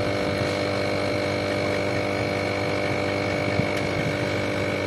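Walton refrigerator compressor running on the bench, a steady electrical hum, with its capacitor being disconnected. A faint tick comes about three and a half seconds in.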